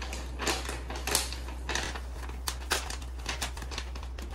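Rustling and crinkling of a shopping bag being handled and opened, a run of irregular sharp crackles.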